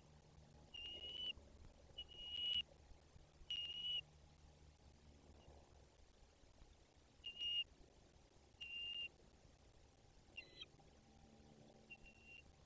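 Bald eagle nestlings peeping: about seven short, high, single-pitched calls, roughly one to one and a half seconds apart, with a pause of a few seconds in the middle.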